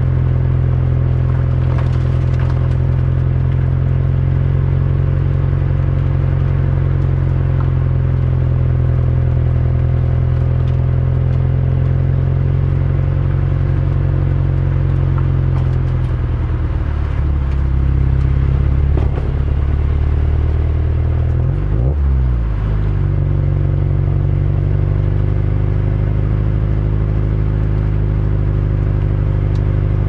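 Subaru WRX STI's turbocharged flat-four engine running at low, steady revs on a slow drive, heard from inside the cabin. A little past halfway the engine note wavers, and about two-thirds of the way through it dips and rises quickly, then settles slightly higher.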